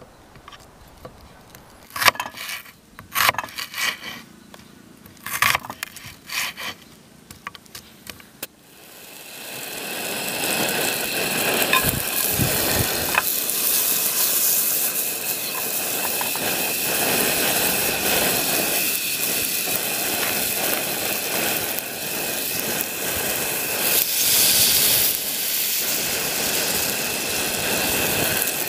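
A knife slicing an onion on a wooden cutting board, a series of sharp knocks. From about nine seconds in this gives way to a steady sizzle of onion frying in a pan on a portable gas-canister stove.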